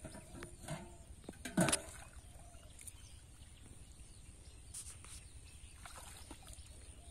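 Faint sloshing and splashing of shallow muddy water as hands and feet work through it, with a few short splashes and one brief louder one about a second and a half in.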